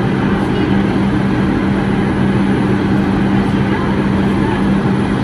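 A stationary Bombardier R142 subway car, heard from inside, giving off a steady, loud hum from its on-board equipment, with one constant low tone that does not change.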